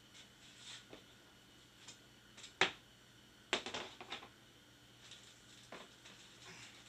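Handling a plastic storage bin and the bagged sawdust blocks inside it: a sharp knock about two and a half seconds in, then a quick cluster of clicks and plastic rustles, with softer handling sounds after.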